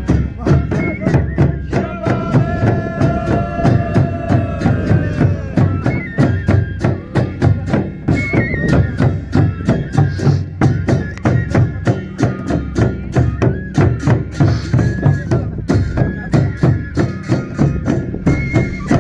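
Traditional Pangwali folk dance music: drums beaten in a steady fast rhythm under a wind instrument playing a sustained, wavering melody.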